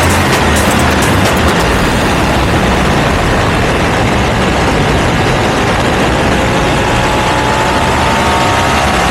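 Ducati V2 motorcycle with a Termignoni exhaust being ridden: its twin-cylinder engine note under a loud, steady rush of noise, the pitch climbing slowly near the end as the revs rise.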